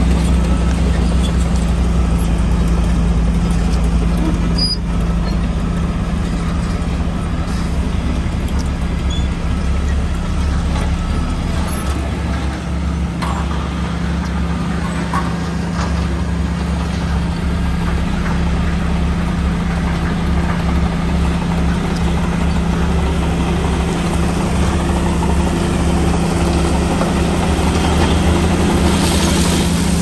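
Shantui DH17 bulldozer's diesel engine running steadily, a constant low drone that holds its pitch throughout.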